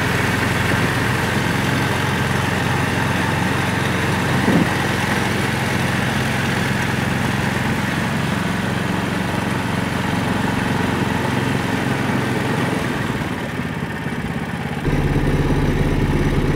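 Small go-kart engine running at full throttle as its drive wheel churns the water, with a steady rush of splashing spray; the builder thinks the wheel spins fast enough to cavitate. About 15 seconds in, the engine sound jumps closer and louder.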